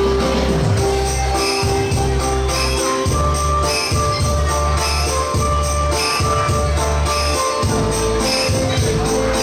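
Dance music with a steady beat: constant jingling percussion over a pulsing bass line and a melody of held notes.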